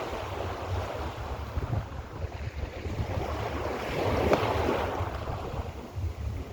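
Mediterranean sea waves washing onto the shore, with wind buffeting the microphone in a low rumble. A wave surges in and swells louder about four seconds in, then recedes.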